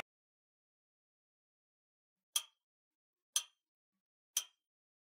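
Silence, then about two seconds in a sharp clock tick starts, once a second, three times: a ticking countdown-timer sound effect.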